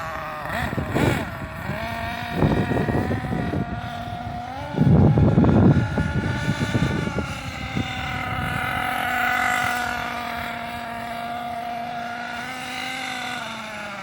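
Losi 8IGHT-T RC truggy running with a high, steady whine that dips briefly near the start and drops slightly near the end. Gusts of wind buffet the microphone several times, loudest about five seconds in.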